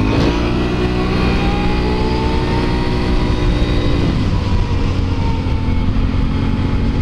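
Can-Am Renegade 1000 XXC quad's V-twin engine under way, its pitch rising as it accelerates for about four seconds, then levelling off.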